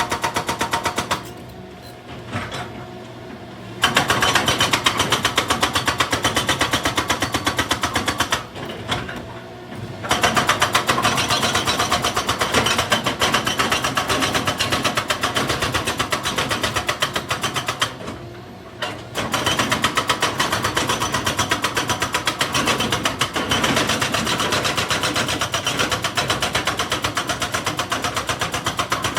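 Excavator working stone with rapid, evenly spaced blows, like a hydraulic breaker hammering rock, pausing three times for a second or more while the engine keeps running.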